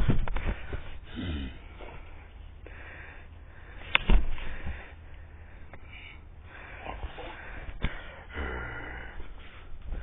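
Yellow Labrador sniffing and snorting in short puffs, with a few sharp knocks, the loudest about four seconds in.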